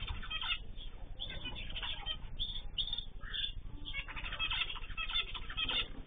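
Canaries and finches in an aviary chirping and twittering in quick, overlapping calls, heard thin through a security camera's microphone with the high notes cut off.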